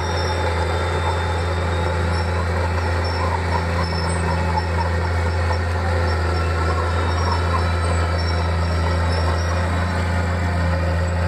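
Komatsu crawler bulldozer's diesel engine running steadily under load as the blade pushes a pile of earth, with scattered clanking from its steel tracks.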